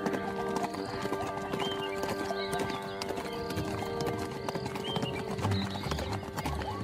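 Horse hooves clopping as horses move about, over background music holding long notes.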